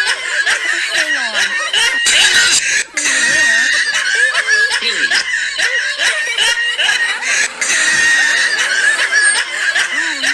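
Looped cartoon laughter sound effect: several voices laughing and snickering over a dense din, the same stretch repeating about every five seconds.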